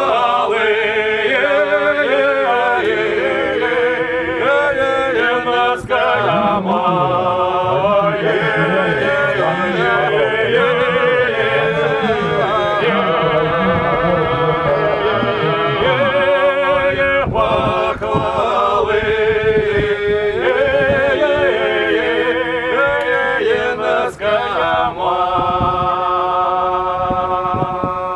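A group of men singing unaccompanied in several-part harmony: a slow folk song with long held notes.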